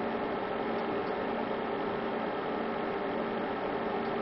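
Steady background hum and hiss with a few faint steady tones underneath, without change.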